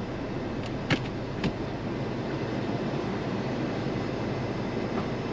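Cabin noise of a 2023 Chevy Colorado ZR2 pickup creeping along a rough dirt forest trail: a steady low rumble, with two sharp knocks about a second in and half a second later.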